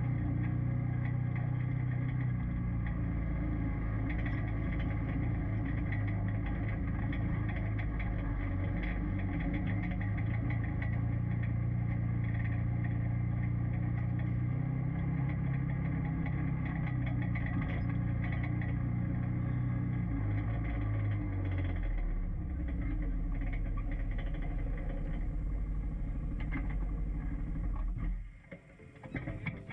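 A UTV engine running steadily as the vehicle is driven, its pitch shifting a few times. The sound drops away abruptly near the end.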